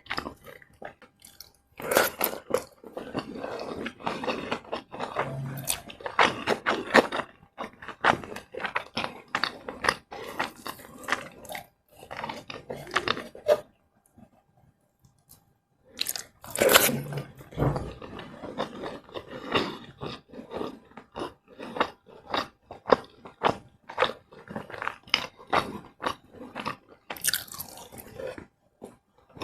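Close-miked chewing and crunching of fried rice with flour-battered fried liver and coleslaw: irregular wet chews and crisp crunches, with a pause of about two seconds in the middle.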